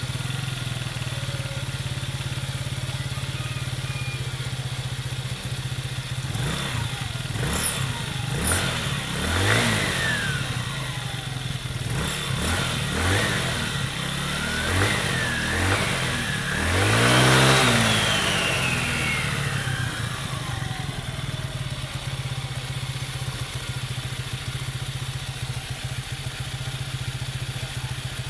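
GY6 125 cc single-cylinder four-stroke scooter engine running at idle, then revved in a string of short throttle blips from about six seconds in, the biggest near seventeen seconds, before settling back to a steady idle. The revs spin the raised rear wheel as the centrifugal clutch grabs the freshly fitted clutch bell, a test run after the clutch bell replacement.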